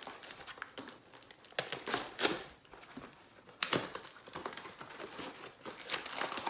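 Packaging being handled and pulled open by hand: irregular rustling and ripping, with sharper strokes about two seconds in and again at about three and a half seconds.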